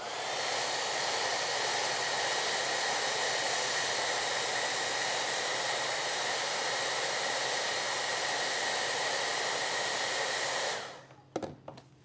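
Handheld hair dryer blowing steadily, a rush of air with a faint high whine, switched off about eleven seconds in and dying away quickly. A few light knocks follow.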